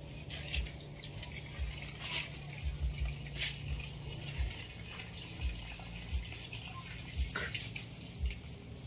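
Water splashing in irregular handfuls as someone rinses grit out of their eyes and face, over dull low thumps. A faint low hum stops about halfway through.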